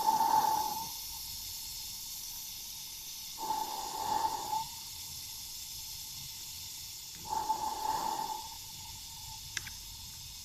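Gas burner of a Märklin BR 89 live-steam model locomotive pulsing in a slow beat that imitates a Westinghouse air pump. There are three whooshes of about a second each, some three and a half seconds apart, each carrying a steady tone, over a constant faint hiss.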